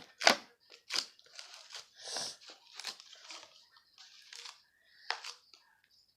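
Slime being kneaded and stretched by hand: irregular crackling and squishing pops, the loudest just after the start.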